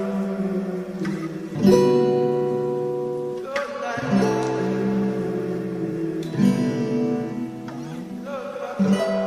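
Music: guitar chords strummed and left to ring, with a new chord about every two to three seconds.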